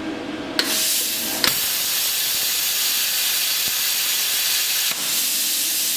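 A CNC plasma cutter's torch fired as a test from the control software, giving a steady loud hiss. It starts about half a second in and steps up with a click about a second later, a sign that the table and cutter are communicating and working.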